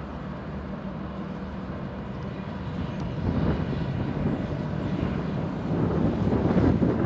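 A steady low engine hum, with a louder, rougher engine noise building from about three seconds in and still rising at the end.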